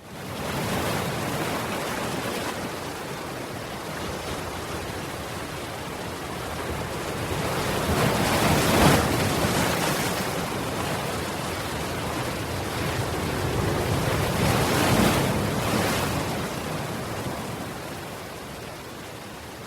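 Ocean surf: a continuous wash of waves that starts abruptly and swells twice, with waves breaking loudest about nine and fifteen seconds in.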